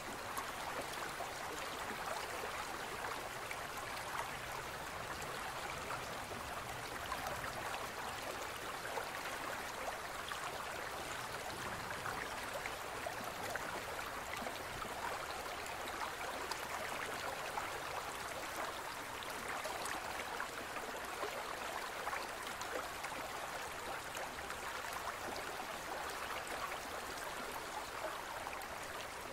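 Steady bubbling and trickling of aquarium water from a rising curtain of air bubbles and a small filter pump.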